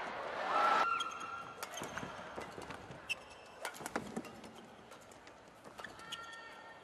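Badminton rally: rackets strike the shuttlecock with sharp cracks, and the players' shoes squeak and thud on the court. A swell of crowd noise rises and falls in the first second.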